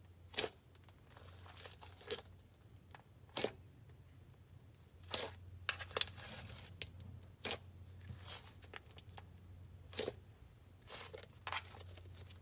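Clear slime full of fishbowl beads and clay being stretched, folded and squeezed by hand, giving sharp, irregular pops and crackles about once a second. A low steady hum lies underneath.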